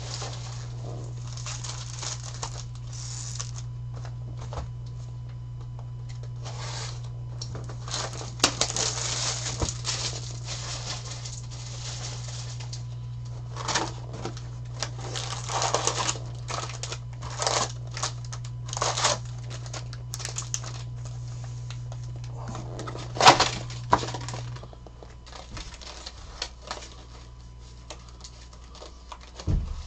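Trading-card hobby box being opened and its foil packs crinkling and rustling as they are pulled out and stacked, in irregular bursts. A steady low hum runs underneath and cuts out about three-quarters of the way through.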